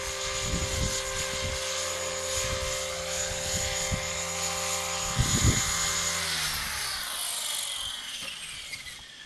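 Flasher 500 radio-controlled helicopter running with a steady whine, then spooling down after landing, its pitch falling steadily over the last three seconds. Wind buffets the microphone with low thumps.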